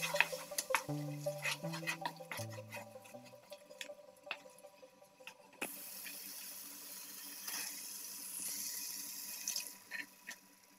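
Background music dying away in the first few seconds, with light clicks of a wooden spoon stirring in the frying pan. About halfway through a steady hiss sets in: the thick curry filling sizzling in the pan.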